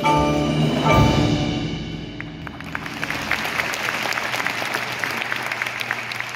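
Indoor percussion ensemble playing: ringing mallet-keyboard chords and a heavy low drum hit about a second in, fading into a steady rattling texture of many small clicks.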